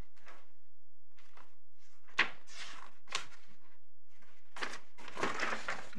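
Paper rustling as pages of a hearing bundle are turned: a series of short rustles, one sharper knock a little over two seconds in, and a longer stretch of rustling near the end.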